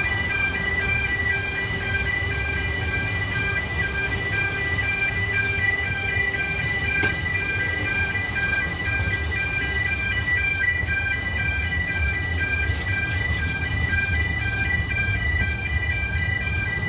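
Level crossing warning alarm sounding throughout in an evenly repeating electronic pulsing tone, over the steady low rumble of narrow-gauge heritage railway carriages rolling past across the crossing.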